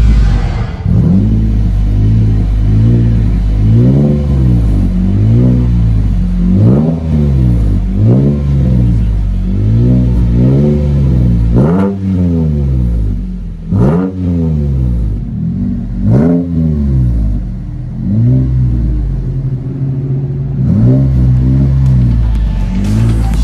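2022 Chevrolet Colorado Bison's engine through a Street Demon true dual performance exhaust, idling and revved in a long run of quick throttle blips, each rising and falling back in pitch about once a second, with a short steadier idle spell late on.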